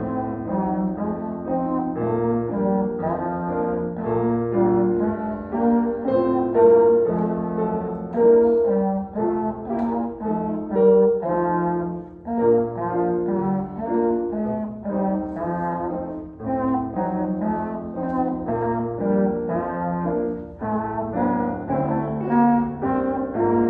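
A brass instrument playing a melody, accompanied by a digital piano.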